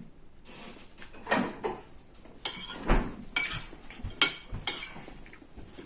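Cutlery clinking and scraping against a plate while eating, a string of short irregular knocks and clicks.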